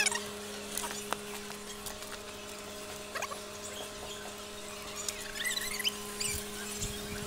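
Black plastic borewell pipe being fed by hand down into the well casing, giving short squeaks and small clicks as it rubs, with a cluster of squeaks about five seconds in. A steady low hum runs underneath.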